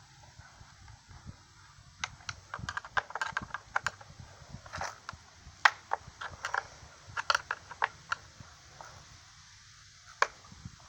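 Rapid, irregular clicking and tapping of hand tools and small parts being worked on a chainsaw while a tight part is forced. The clicks start about two seconds in and end with one sharper click near the end.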